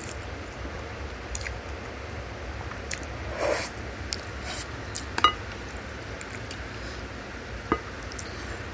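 Close-up eating sounds of a bowl of beef meatball soup with noodles: wet chewing and mouth noises, with a few sharp clicks of wooden utensils against the bowl, the loudest about five seconds in and another near the end.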